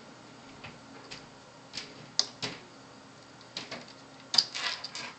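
Irregular clicks and light knocks of a USB flash drive being handled and pushed into a computer's USB port, the loudest knock about four and a half seconds in, followed by a short flurry of clattering.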